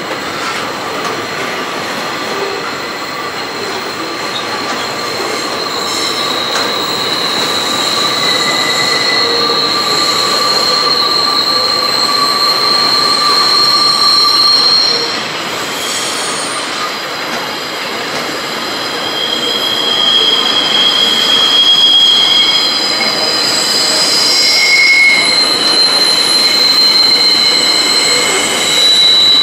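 Freight train wagons rolling past, their steel wheels squealing. Several high, shrill squeal tones come and go over a steady rumble of the wheels on the rails.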